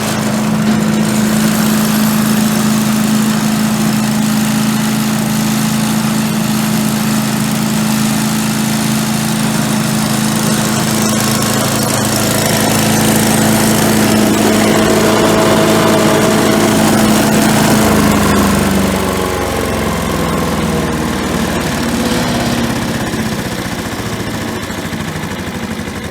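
Craftsman 6.5-horsepower chipper shredder's engine running steadily, then its pitch drops about eighteen seconds in as it slows, and it carries on running at the lower speed.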